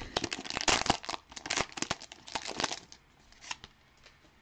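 Trading card pack wrapper being torn open and crinkled, a dense run of crackling that stops about three seconds in, followed by a few faint ticks.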